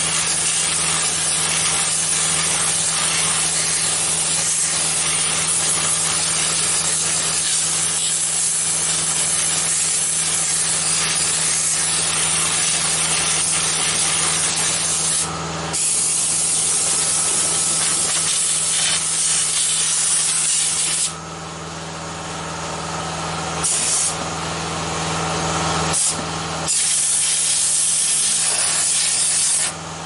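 Compressed air from an air compressor blasting into a PC case: a loud, steady hiss. The air cuts off briefly about halfway through and three more times in the last third as the trigger is let go. The compressor motor hums steadily underneath.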